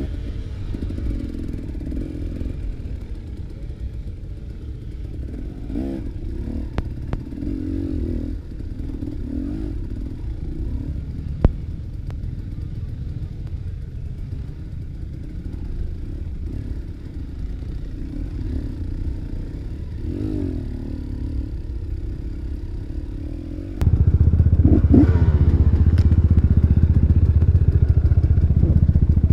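Enduro motorcycle engines running steadily, with a few clicks and knocks. About 24 s in, the sound turns abruptly much louder and stays loud.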